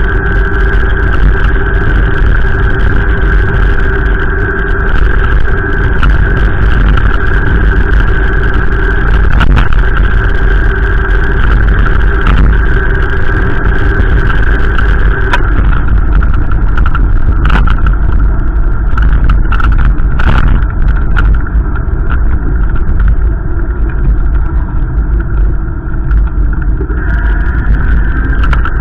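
Strong wind buffeting the microphone in a loud, continuous low rumble, over a steady hum whose pitch shifts about halfway through, with a few brief knocks.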